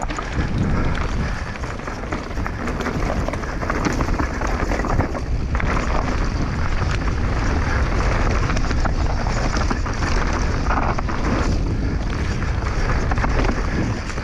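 Mountain bike riding down a rough dirt trail: steady wind rush over the camera microphone with the rattle and knocks of the bike and tyres over the ground.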